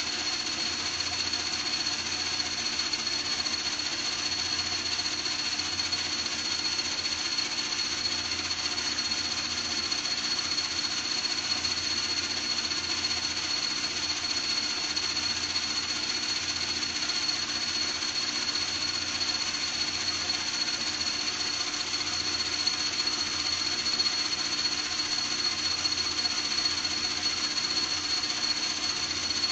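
A small electric motor running steadily without a break, with a constant high whine over a lower hum.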